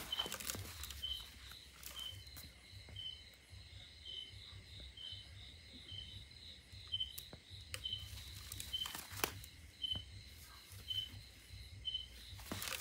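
Faint chorus of night insects, likely crickets: a steady high whine with a short high chirp repeating about twice a second. Scattered soft clicks and rustles sound over it.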